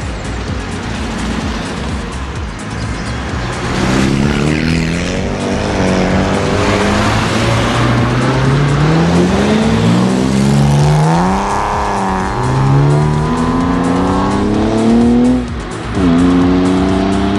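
A car engine accelerating hard, its pitch climbing and then dropping again at each gear change, starting a few seconds in, with a short break and another climb near the end.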